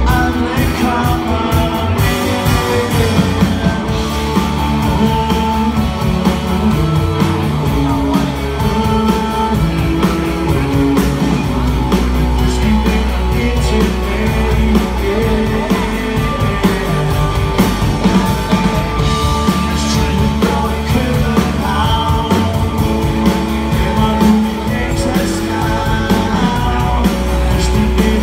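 Live rock band playing: electric guitars, electric bass and drums, with a male lead singer.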